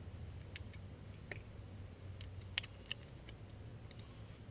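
A few scattered light clicks and taps of handling, over a low steady hum.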